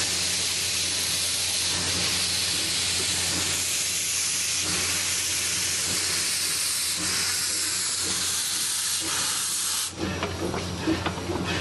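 Steady loud hiss of steam from the open cylinder cocks of the Eureka & Palisade No. 4, a wood-burning narrow-gauge 4-4-0 steam locomotive, as it pulls away. Near the end the hiss cuts off and sharp clicks of the rolling train take over.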